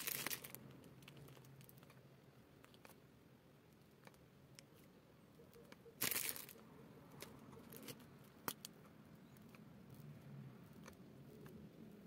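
Plastic piping bag rustling and crinkling in the hand while cream petals are piped onto a flower nail. Two louder crinkles, at the start and about six seconds in, and a few faint clicks.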